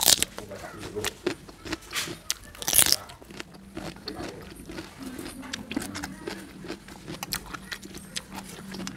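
Close-up crunching of a raw cucumber being bitten and chewed: a crisp bite at the start, then an irregular run of sharp crunches, the loudest about three seconds in.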